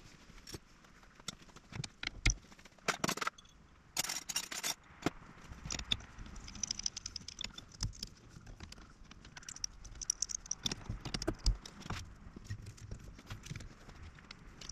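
Scattered small clicks, knocks and rattles of hands handling the spark plug leads and fittings on the Hercules ZXB engine, with two short hissing bursts about three and four seconds in. The engine itself is not running.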